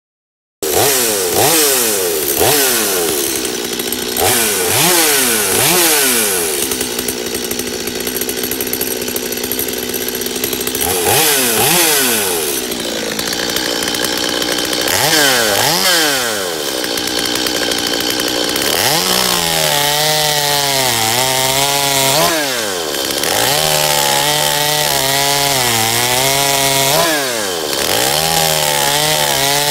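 Stihl two-stroke chainsaw revved in a string of short throttle blips, each falling back. About two-thirds through it holds at high speed, its pitch sagging and recovering as the chain cuts through wood under load.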